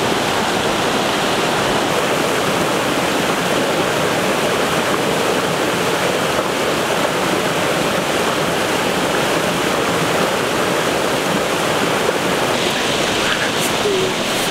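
Whitewater stream rushing over rocks in small cascades: a loud, steady, unbroken rush of water.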